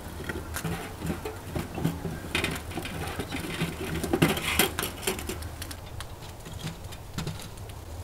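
Irregular light knocks, clacks and rustles of split firewood being handled, over a steady low hum.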